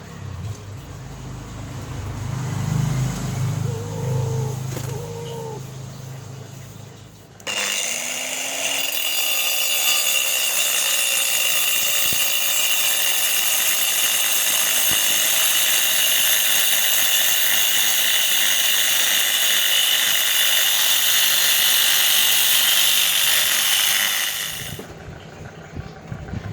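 A power tool running steadily with a high-pitched whine. It starts abruptly about seven seconds in and cuts off a couple of seconds before the end. Low handling and rumbling noises come before it.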